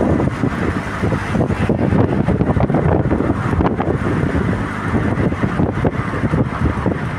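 Car driving along, with a steady rumble of engine and road noise and wind buffeting the microphone in uneven gusts.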